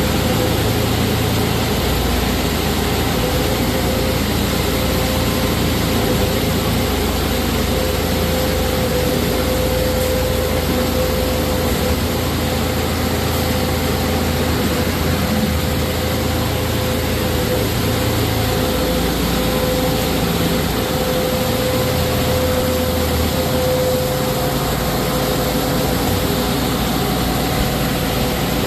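Concrete mixer pump running steadily at a worksite, a loud machine noise with a steady whine and a low rumble that shifts in strength every few seconds.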